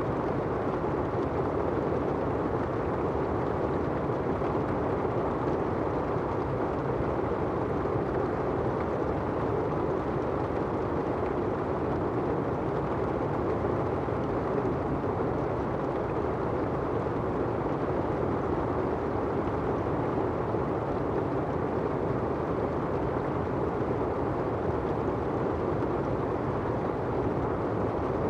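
Steady rain, a dull even hiss with no single drops standing out.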